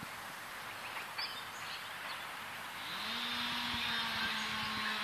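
Hobby King Breeze RC plane's electric motor and propeller spool up about three seconds in: a hum that rises briefly in pitch and then holds steady, with a higher whine above it, as the throttle is opened again after being cut back. Before that, only faint outdoor background with a few short bird chirps.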